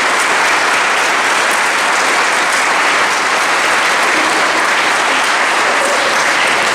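Audience applauding steadily in a hall, a dense sustained clapping from many people that starts to thin out near the end.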